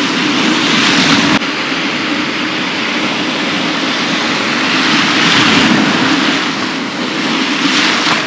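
Ocean surf washing through shallow water: a steady rushing noise that swells a few times as waves break and wash in.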